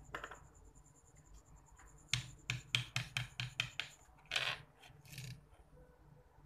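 Spoon scraping and dabbing thick black acrylic paint across a wood panel: a quick run of about eight short scrapes, some five a second, then a longer scrape and a fainter one.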